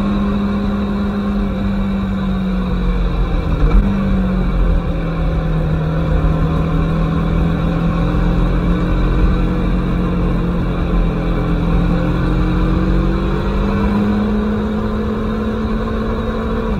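Aprilia Tuono motorcycle engine running at road speed, heard from a camera on the bike with wind rumble. The engine note eases down in the first couple of seconds, blips briefly about four seconds in, holds steady, then climbs again toward the end as the bike accelerates.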